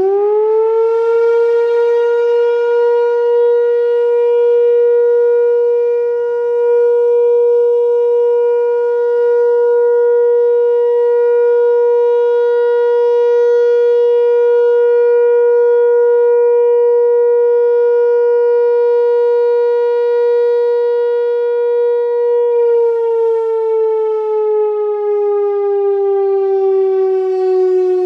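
Whelen WPS-4004 electronic outdoor warning siren, driven by an analog ESC-864 controller, sounding its steady Alert tone. The pitch climbs quickly at the start and holds one steady tone for a little over twenty seconds. Then it slides slowly downward as the signal winds down near the end.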